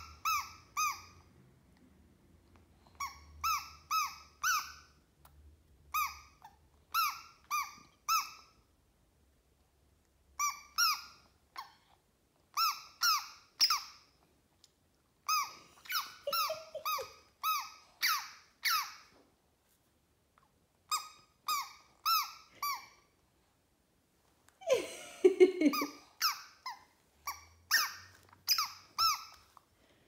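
Small plastic bird whistle blown by a baby in short rising tweets, mostly in groups of two to four with pauses between groups. About 25 seconds in there is a louder, lower sliding sound.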